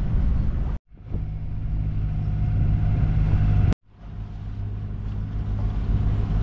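A boat's engine running steadily with a low hum under a hiss. The sound cuts out suddenly twice and fades back in.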